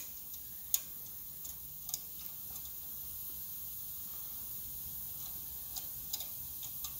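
Scattered light metallic clicks as the spring-loaded tension rod on a tube rotary axis is adjusted by hand, tightening its grip on the tube. The clicks come a few in the first two seconds and again near the end, over a faint steady hiss.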